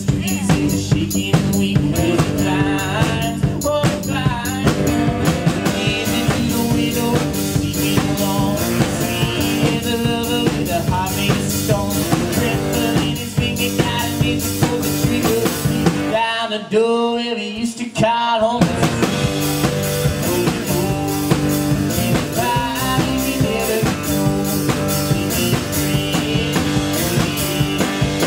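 A two-piece rock band playing live: strummed acoustic guitar, singing and a drum kit keeping a steady beat. The beat stops for about two seconds just past the middle, then comes back in.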